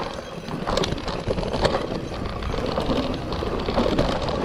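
Mountain bike ridden down a rough dirt trail: tyres running over dirt and roots with a continuous clattering rattle and many sharp knocks from the bike. The rider calls the bike so rattly that he wants a chain link taken out, putting it down to a chain slapping about.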